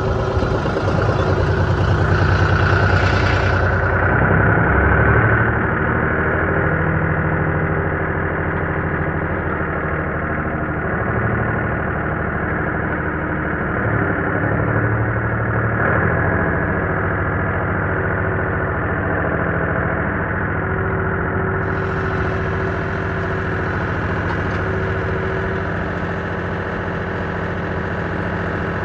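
Tractor engine running steadily under load, pulling an old Allis Chalmers Roto-Baler as it bales hay; a little louder in the first few seconds, then even.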